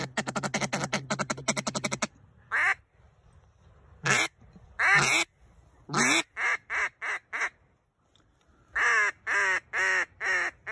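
Mallard duck call blown in hen quacks: a fast feeding chatter for about the first two seconds, then scattered single quacks. Near the end comes a run of five quacks falling in pitch, calling to ducks circling overhead.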